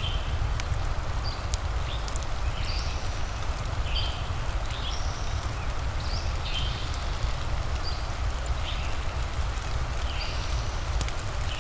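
Steady rain-and-fireplace ambience with a deep rumble underneath and sparse faint crackles. Short high chirping animal calls recur irregularly, about once a second.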